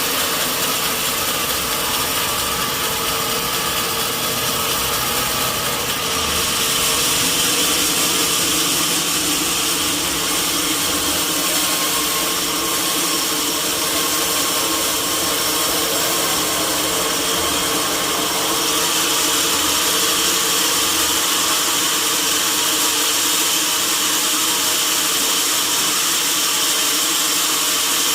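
Sawmill saw running steadily through a log: a dense rushing noise with a steady whine over it, growing louder and brighter about six seconds in.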